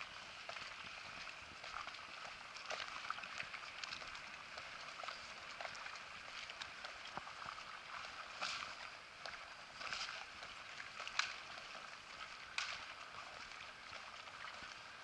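Faint outdoor ambience beside a marina quay: water lapping against the stone edge, with scattered light clicks and a few louder knocks between about eight and thirteen seconds in.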